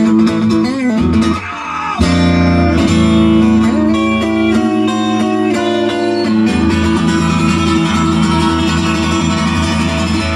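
Guitar-led rock music in an instrumental passage, with a brief drop in level about one and a half seconds in before the full band comes back in.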